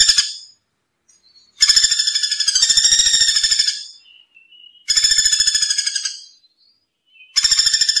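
Common flameback woodpecker calling: fast runs of repeated high notes, each lasting about two seconds with short silences between. One call ends just after the start, two full calls follow, and another begins near the end.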